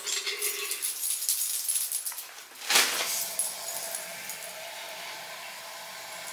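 Faint clicks and rustles of handling at a bathroom sink just after the tap stops running, with one brief louder rush about three seconds in.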